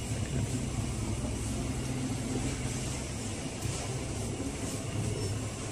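Steady low hum and hiss of a supermarket interior, from refrigerated chest freezers and ventilation running.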